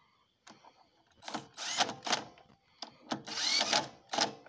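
Cordless impact tool driving the gearbox cover bolts home in two bursts, its motor whine rising as it spins up, with a short third burst near the end.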